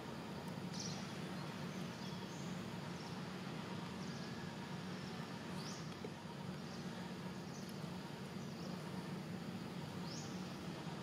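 Outdoor ambience: a steady low hum and hiss, with short high chirps every one to two seconds.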